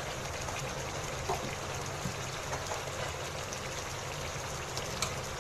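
Chicken frying in ghee in an open pan, a steady sizzling hiss, over a low steady hum, with a few faint clicks.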